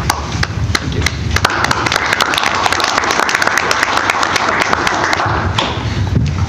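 A small group applauding: many hands clapping together, building about a second in and dying away near the end.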